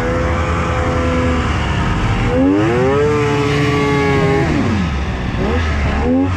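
Polaris Indy XLT 600 triple's three-cylinder two-stroke engine revving as the snowmobile pushes through deep powder. The revs climb about two and a half seconds in, hold, then drop, followed by two short blips of the throttle near the end.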